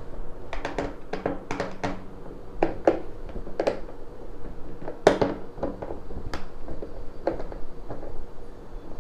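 Irregular clicks and knocks from a car door's plastic trim and fixings being handled while its screws are checked for looseness. The loudest knock comes about five seconds in.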